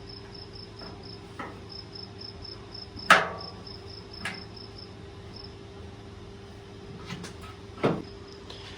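A few sharp knocks and clunks from a part being worked into place on a skid steer loader. The loudest comes about three seconds in, another follows a second later, and two more come near the end. Crickets chirp steadily in the background, with a low hum.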